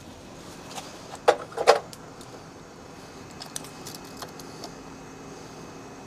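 Hand work on PVC conduit and tools: two sharp knocks about a second and a half in, then a scatter of lighter clicks and rattles, over a faint steady hum.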